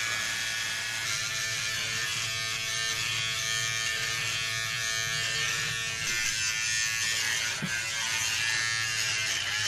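Electric hair clippers buzzing steadily as they are run over a man's head, shaving off his hair.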